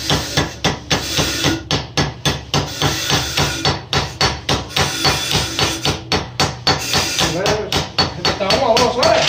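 Hammer driving a punch to set rivets that fasten a new lining to a drum-brake shoe clamped in a vise: a steady run of metallic blows, about three a second.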